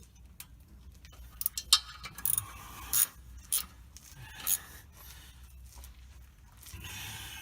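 Hand ratchet tightening loose clutch bolts: several short bursts of metallic clicking and scraping, then a longer scrape near the end.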